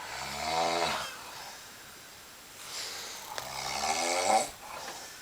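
Someone asleep snoring: two rasping, pitched snores about three seconds apart, the second longer and louder than the first.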